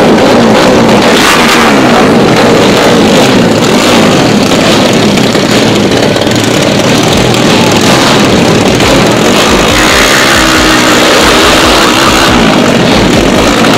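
Race motorcycle's small horizontal-cylinder engine of the 57 mm piston, stock-stroke class revving loudly and repeatedly at the drag-strip start line, its pitch rising and falling as the throttle is blipped.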